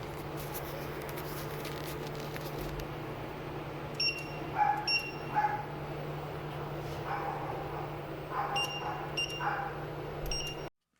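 Several short, high electronic beeps, with a few brief lower tones between them, over a steady electrical hum.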